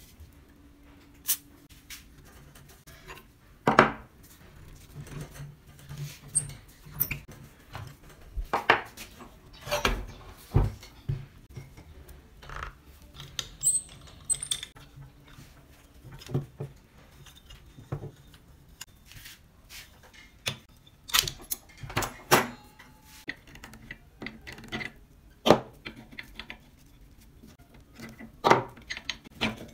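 Irregular metallic clinks, taps and knocks of hand tools and loose parts against the rusty housing of a drill press head being dismantled, with a few louder knocks among them.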